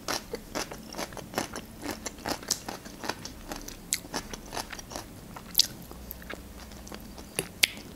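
Close-miked chewing with many small irregular mouth clicks and crisp crunching of a fresh cucumber stick, with a fork scooping mashed potato. A couple of sharper clicks stand out in the second half.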